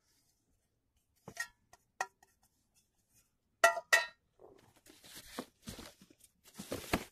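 A small metal pot clinking as it is handled and set down: light clicks, then two louder ringing clinks about halfway through. This is followed by a rustling of clothes and fabric being rummaged through.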